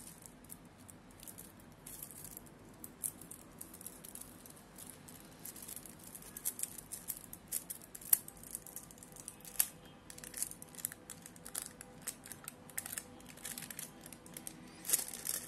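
Aluminium foil wrapper of a dark chocolate bar crinkling and crackling in the hands as it is opened, with scattered sharp clicks and a denser run of crackles near the end. The bar is broken inside the foil partway through.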